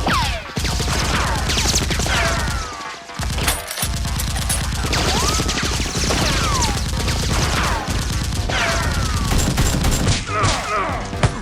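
Rapid, sustained gunfire-style shooting from several blasters at once, with a short lull about three seconds in, and faint background music underneath.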